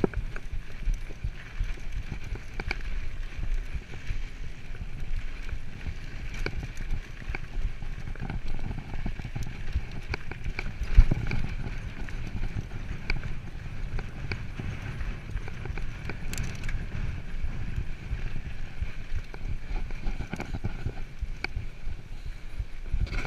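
Mountain bike ridden over dirt singletrack: a constant low rumble from the tyres on hardpack, with frequent clicks and rattles from the bike over bumps. One sharp, louder knock about eleven seconds in.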